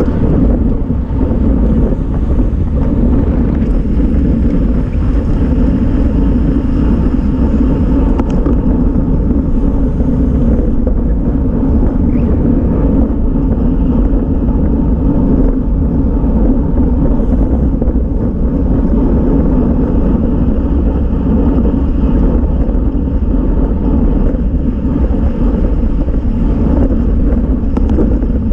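Wind buffeting the microphone of a camera on a road bicycle moving at about 23 mph: a steady, loud low rumble with no breaks.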